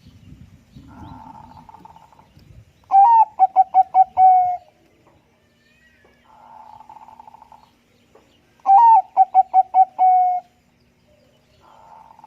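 Zebra dove (Bangkok-type perkutut) cooing: two loud song phrases, each a rising first note followed by a quick run of about six short coos and a longer closing note. Softer rolling coos come before, between and after the loud phrases.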